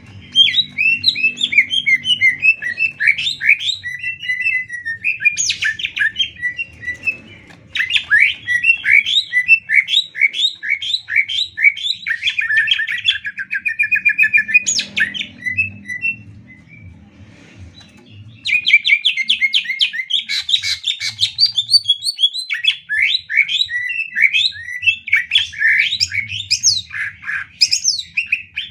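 Green leafbird (cucak ijo) singing a fast, varied song of rapid chattering trills and sweeping notes, in long unbroken runs. The song pauses for about two seconds just past the middle.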